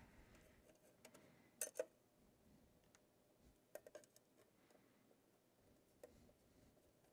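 Faint, sharp clicks of a screwdriver working the screws of a sheet-metal high-voltage cover: a quick pair about one and a half seconds in, a small cluster around four seconds, and one more near six seconds.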